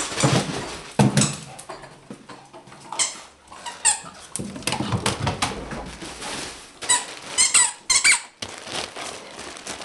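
Dogs scrambling and scuffling over carpet and bedding as they chase a laser pointer dot, with scattered knocks and short high-pitched squeaks, one around four seconds in and a quick run of them about seven to eight seconds in.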